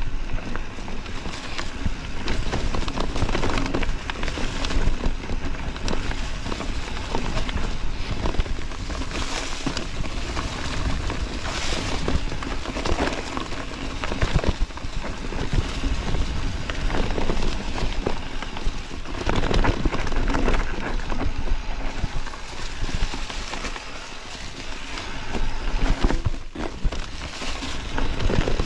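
Mountain bike descending a dirt and stone trail: tyres crunching and rattling over the ground, with frequent knocks and clatter from the bike, and a steady low wind rumble on the microphone.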